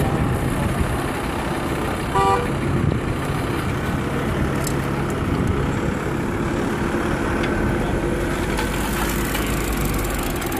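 Steady outdoor hubbub of idling vehicles and people, with a short vehicle horn toot about two seconds in.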